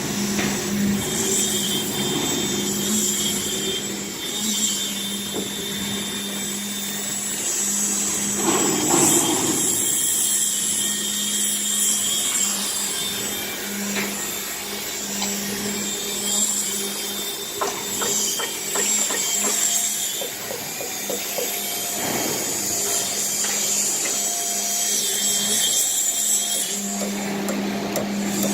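Everdigm truck-mounted concrete pump running while pumping concrete, a steady mechanical hum with hiss, and a run of quick rattling clicks about two-thirds of the way through.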